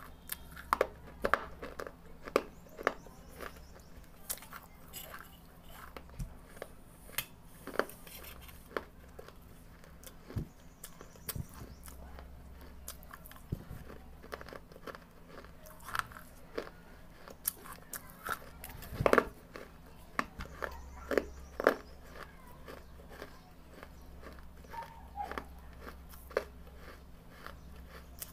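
Red clay brick pieces being bitten and chewed: irregular sharp crunches and crackles, some louder than others, with a loud cluster of crunches about two-thirds of the way through.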